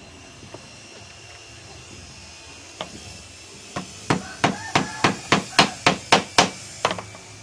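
A small hammer tapping on a small wooden part. There is one tap, then a quick run of about a dozen sharp taps, roughly three a second, that stops shortly before the end.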